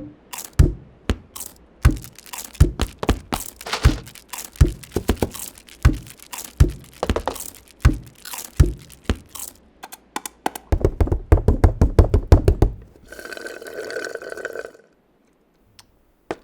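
A run of staged foley effects: separate knocks and thuds, one or two a second, then a fast string of thumps about five a second, then a buzzing hum for about two seconds that cuts off suddenly.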